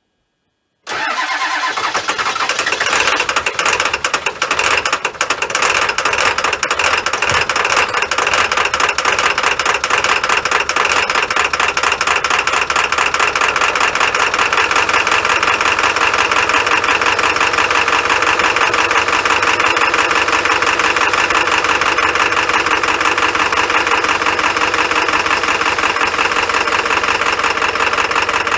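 Ford 7.3 Powerstroke V8 turbo-diesel starting up about a second in and running with a loud, steady diesel clatter: a cold start in sub-zero cold after about four hours on the block heater.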